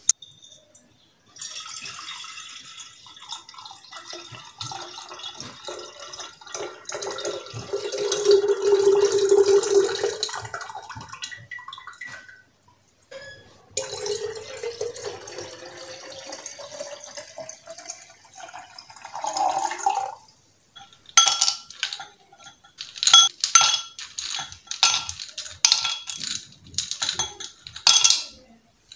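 Liquid poured into a glass pitcher in two long pours, the second rising in pitch as the pitcher fills. Then, from about three-quarters of the way in, a run of ringing clinks as ice cubes drop one after another into a stemmed wine glass.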